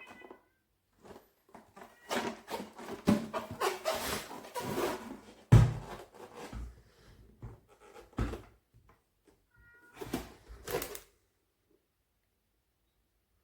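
Irregular knocks, clicks and rustles of objects being handled, busiest in the first half, with one heavy thump about halfway through.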